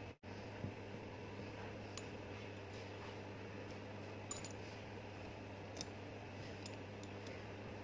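Faint, light metallic clicks and clinks from the small steel parts of a pneumatic chipping hammer being handled and fitted together, a few scattered taps, over a steady low hum.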